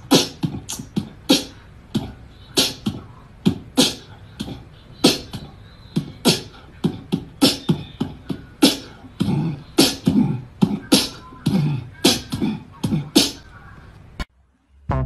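A quick, irregular run of sharp smacks and clicks, about two to three a second, some with a dull thud under them, stopping shortly before the end.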